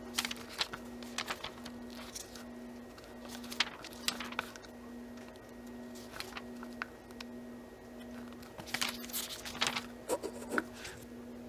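Pages of a paperback book being turned and flicked by hand: short, irregular paper rustles and flaps, busiest near the end. A faint low hum that throbs about once a second runs underneath.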